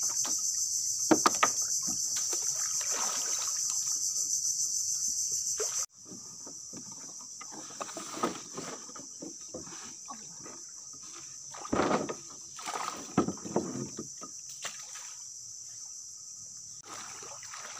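Steady, high-pitched insect chorus from the mangrove. It is loud for about the first six seconds, then drops suddenly and carries on more faintly, with scattered short knocks and rustles.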